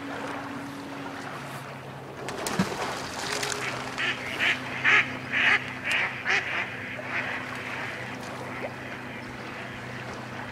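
A duck quacking about eight times in a quick series, loudest in the middle and trailing off, over a steady low hum.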